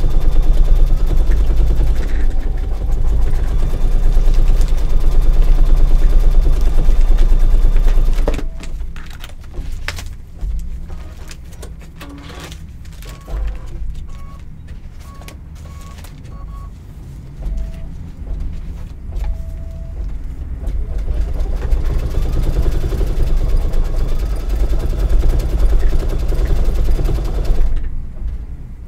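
Brother Luminaire 2 embroidery machine stitching out decorative stitches at speed. It stops for about twelve seconds after the first eight, with clicks and a few short beeps, then resumes stitching.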